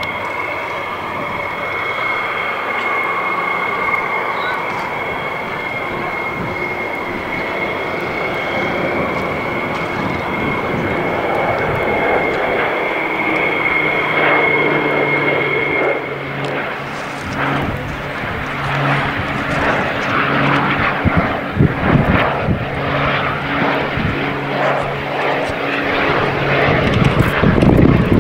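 Airplane engines running: a steady high whine for the first half, giving way about halfway through to a deeper, steady engine hum with a rough rumble that grows louder toward the end.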